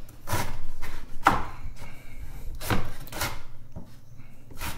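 Chef's knife dicing a fennel bulb on a wooden chopping board, with about five separate blade strikes through the board at uneven intervals.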